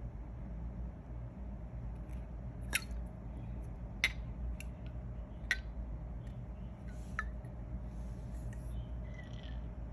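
Unboxing handling sounds: about five sharp clicks and taps from packaging being handled, with faint rustling, over a low steady hum.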